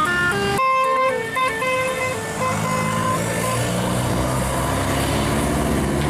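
A bus's Basuri telolet horn plays a tune: a quick run of notes, then after a brief break a few longer held notes that stop about halfway through. The bus's engine and road noise continue afterwards.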